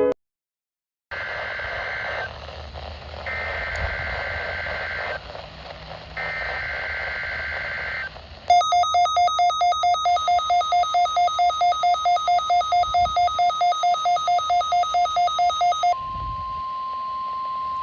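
NOAA Weather Radio test broadcast: three bursts of warbling SAME digital header data. Then comes a rapid pulsing electronic alert beep, about four beeps a second. About sixteen seconds in it gives way to the steady single-pitch 1050 Hz weather radio alarm tone.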